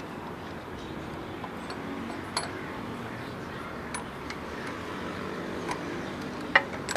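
A few sharp metallic clicks and clinks from a ratchet wrench working in the open cylinder head of a Cat 3412 diesel engine, the loudest near the end, over a steady workshop hum.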